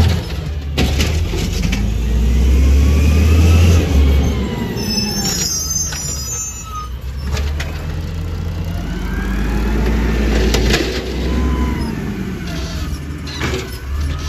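Automated side-loader garbage truck's diesel engine revving up and settling back twice as it works its hydraulic arm to lift and tip a trash cart. Several sharp clanks come from the arm and cart.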